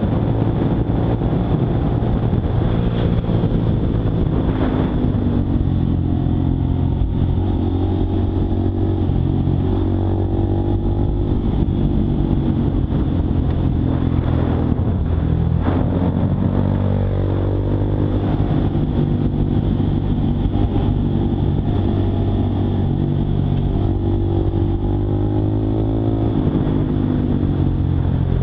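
Honda Monkey 125's single-cylinder four-stroke engine running while riding, its pitch stepping up and down several times with throttle and gear changes, and briefly dropping about halfway through.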